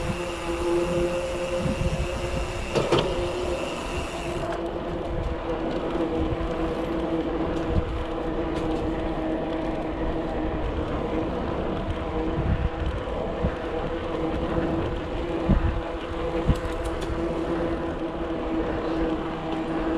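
Mountain bike riding along a paved path: wind rumbling on the microphone and rolling noise, with a steady hum throughout. A few louder knocks, one about three seconds in and two near the end.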